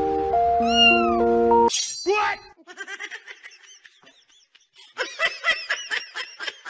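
Background music with a gliding whistle-like tone, cut off suddenly about a second and a half in; then a cat's short, high cries, faint at first and coming in quick succession, louder near the end.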